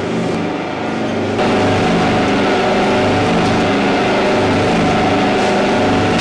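Feed mill machinery running: a loud, steady mechanical drone with a low pulsing hum, stepping up in level about a second and a half in.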